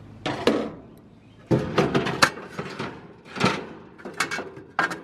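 Metal grill grates being lifted out of a gas grill, scraping and clanking against the grill body in several short bursts.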